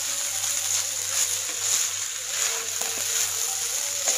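Fried rice sizzling in a kadai over a high flame, with a spatula stirring and scraping through it in repeated strokes.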